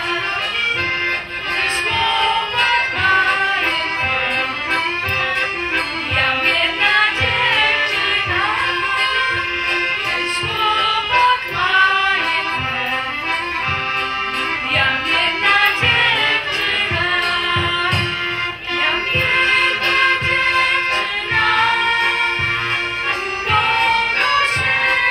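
Polish folk song sung by a group led by women's voices, over a folk band's instrumental accompaniment with a steady beat.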